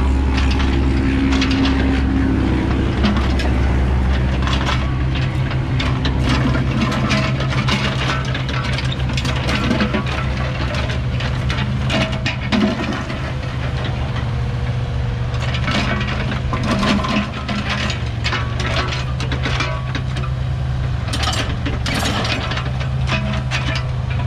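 Komatsu PC15 mini excavator's diesel engine running steadily while it works, with frequent knocks and clatter from the machine and its bucket throughout.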